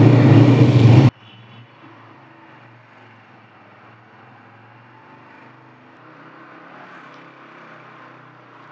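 A freshly kick-started motorcycle engine running loud and close. About a second in, the sound drops suddenly to a faint, steady low hum.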